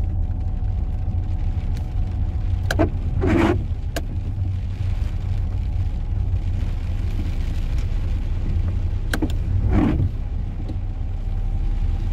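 Inside a moving car: steady engine and road rumble, with the windscreen wipers sweeping twice, about six seconds apart. Each stroke is a short swish with a click at either end.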